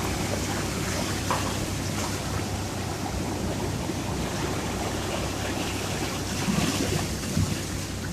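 Sea surf: a steady rushing wash of waves, with a few brief louder surges.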